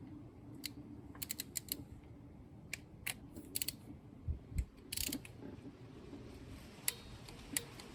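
Torque wrench ratcheting in short runs of light clicks as a new spark plug is tightened to 11 foot-pounds, with a few pauses between strokes.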